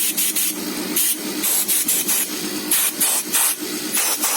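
Compressed air at about 60 PSI from a DIY compressor tank (an aircon compressor feeding an empty freon tank) blasting out through the opened valve in short, repeated hissing spurts, about a dozen in quick irregular succession. A steady hum from the running compressor continues underneath.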